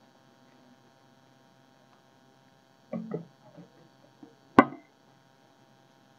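Faint steady hum, with a few soft handling sounds about three seconds in and one sharp knock about four and a half seconds in, as a wooden board and a bonsai pot are handled before unpotting.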